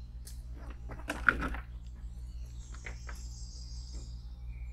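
An insect trilling high-pitched for about two seconds in the middle, over a steady low hum. There are a few light knocks about a second in as the hook is baited.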